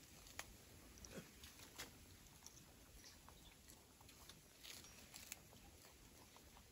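Near silence: faint room of the forest with a few scattered small clicks and rustles.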